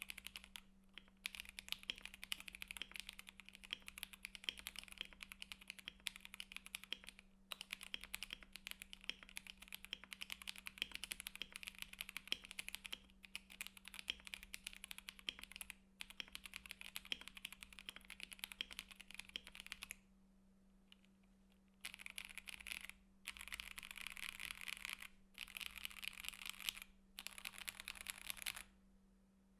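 Typing on a KBD67 Lite mechanical keyboard with stock, unlubricated Gateron Black KS-3x47 linear switches in a polycarbonate plate, under Akko ASA-profile keycaps: fast, steady keystroke clatter that stops for about two seconds two-thirds of the way through, then comes back in several short bursts.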